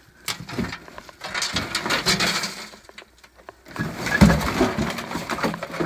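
Someone rummaging through a pile of old junk by hand: irregular rustling, scraping and clattering of objects being moved, with a heavy thump about four seconds in.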